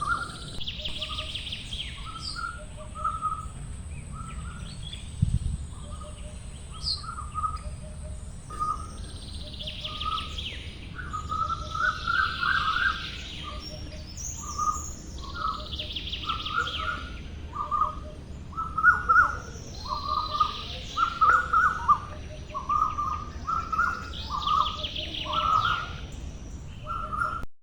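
Birds calling and singing: a steady run of short chirps, with a higher, rapid trill coming back every three seconds or so.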